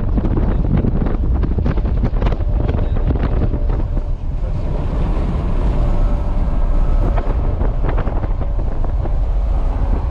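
Wind rushing through the open cab window of a moving semi truck, buffeting the microphone over steady engine and road noise.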